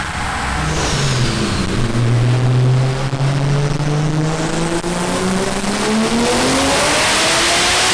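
Big-single-turbo 2JZ-GTE inline-six in a Nissan Cefiro making a full-load dyno pull, its pitch climbing slowly and steadily as the revs rise, getting louder and harsher toward the end.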